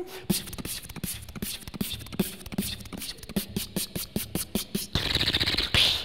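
Solo human beatboxing: a fast run of mouth-made percussive hits, about four or five a second, with a brief buzzing sound near the end.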